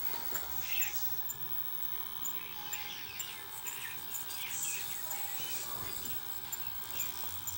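Spinning video head drum of a Philips VR355 VCR running with folded paper held against it to clean the dirty heads, giving a steady high whine over a low hum.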